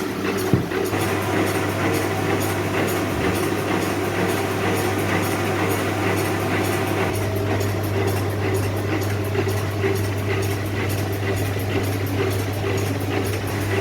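Blacksmith's shop machinery running steadily: a constant low hum under a rushing, rattling noise, with no hammer blows standing out.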